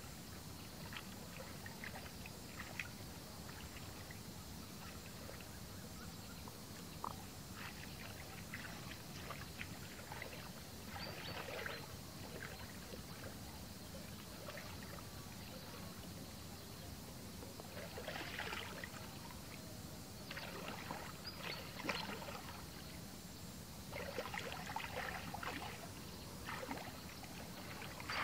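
Shallow muddy water sloshing and splashing as a person wades through it and works a bamboo fish trap by hand, in short irregular bursts several seconds apart.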